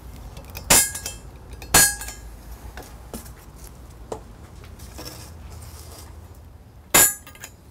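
Center punch struck into a stainless steel square-tube runner to mark hole locations: three sharp metallic strikes with a brief ring, two close together near the start and one near the end, with light clinks of steel being handled in between.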